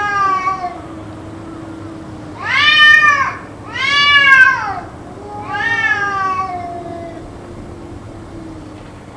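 Cat yowling: four long, drawn-out meows that rise and then fall in pitch, the two in the middle the loudest, over a low steady drone. The uploader wonders whether it is a cat fight.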